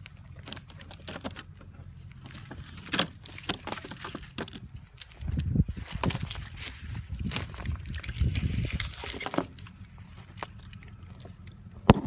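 Small metal object jingling and clinking in a hand, with scattered sharp clicks. From about five seconds in, low dull knocks and rubbing as the phone is handled and brushed.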